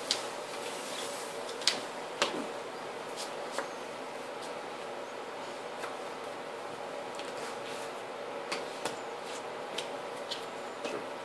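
Scattered light clicks and taps of playing cards being handled and laid on a table, about eight or nine over several seconds, over a steady room hum.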